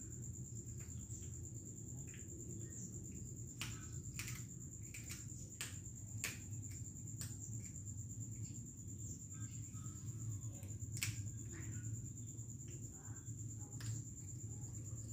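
Domestic cat chewing a dead rat, with irregular sharp crunching clicks as it bites, over a low steady hum.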